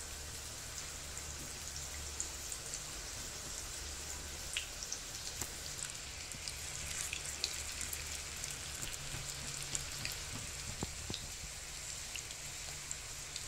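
Chicken chapli kababs shallow-frying in oil in a nonstick pan over a low flame: a gentle, steady sizzle dotted with small crackles and pops.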